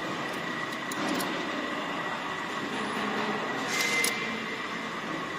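Steady machinery hum with a faint high whine in the background. About four seconds in comes a brief metallic clicking as an open-end wrench tightens the nut on the tipping machine's blade holder.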